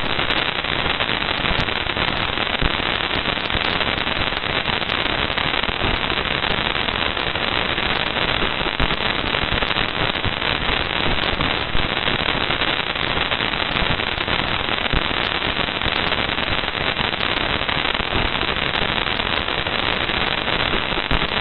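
Plasma-wave data from NASA's Parker Solar Probe in the solar wind, converted to audio: a steady, dense crackling static hiss dotted with small sharp pops.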